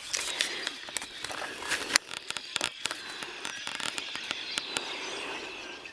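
A flock of birds calling from the trees, with many sharp crackling clicks mixed in.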